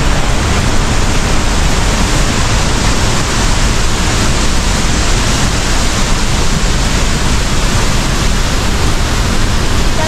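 A tall waterfall falling onto rocks: a loud, steady rush of water with a deep low rumble underneath.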